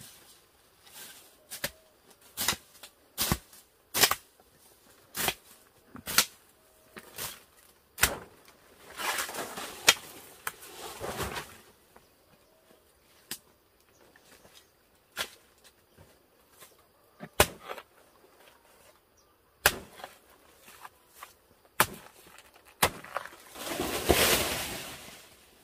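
A machete chopping into a banana plant's soft trunk: sharp single strokes about a second apart. Two longer stretches of rustling leaves break them up; the louder one, near the end, comes as the cut banana stem comes down.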